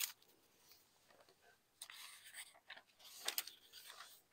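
A few faint, scattered rustles of thin Bible pages being turned while a passage is looked up.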